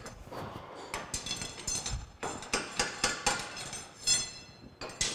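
A dozen or so irregular metallic clinks and knocks, several with a short high ring, as a freshly bored aluminum part is worked loose and pulled out of a lathe's collet.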